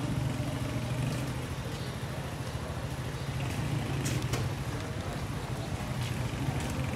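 Street ambience dominated by a steady low engine hum, with a few sharp clicks about four seconds in.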